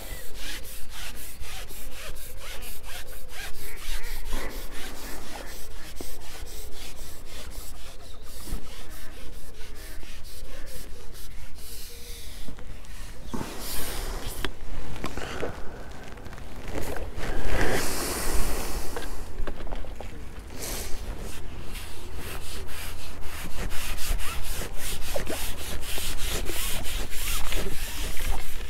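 Carbon fishing pole being shipped back after hooking a fish, its sections sliding and rubbing as they are pulled back hand over hand: a continuous scraping, rubbing noise that grows louder around eighteen seconds in.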